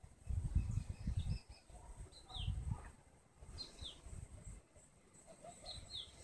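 Songbirds repeating short, high, falling chirps, mostly in pairs, every second or two. Underneath, wind buffets the microphone in gusts, loudest in the first second and a half.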